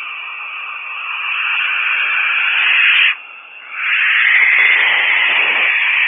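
Barn owl giving two long, harsh, hissing screeches. The first builds over about three seconds and breaks off sharply; the second starts about a second later and runs louder to the end.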